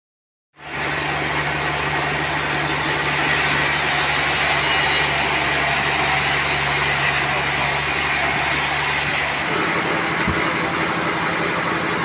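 An engine running steadily under a loud hiss of machinery noise, starting after a brief silence. About nine and a half seconds in the sound changes, and a sharp knock follows about a second later.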